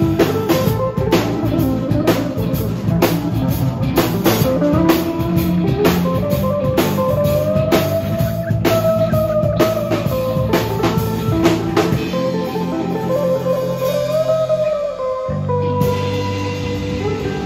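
Live rock band playing an instrumental passage: an electric guitar plays a bending lead line over electric bass and a drum kit. The drums drop back about twelve seconds in, and the full band comes back in near the end.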